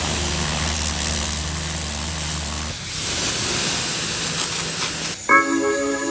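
Pressure washer spraying water in a steady hiss, with the washer's motor humming underneath until about two and a half seconds in. The spray stops about five seconds in and music begins.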